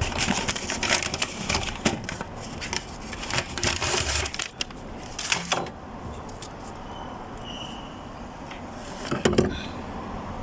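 Scattered clicks, knocks and clatter of hand work as a fuel pump assembly is fitted into a car's fuel tank, in short clusters with a sharp knock near the end.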